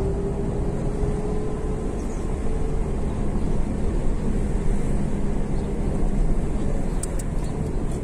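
Vehicle driving along a town road, heard from inside the cabin: a steady low engine and road rumble, with a faint steady hum that fades out about two or three seconds in.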